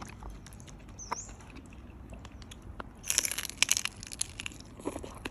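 Close-up crunching and chewing of crispy roast suckling pig skin: scattered sharp crackles, with a dense burst of crunching about three seconds in.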